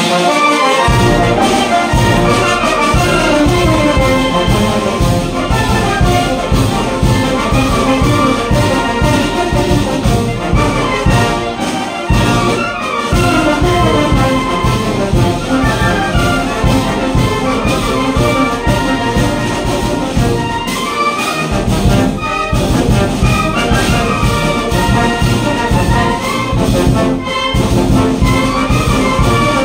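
Mexican wind band of clarinets, saxophones, flute, trumpets, trombones and sousaphones playing a piece together over a steady low beat; the band strikes up right at the start.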